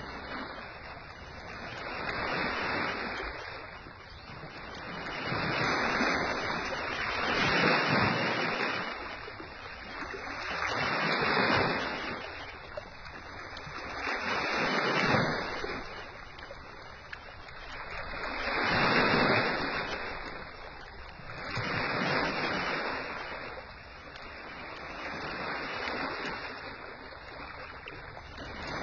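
Sea waves washing in and drawing back, swelling and fading every three to four seconds.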